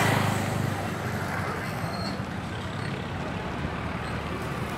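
Road traffic: a motorcycle engine passing close at the start, then a steady low engine hum with road noise.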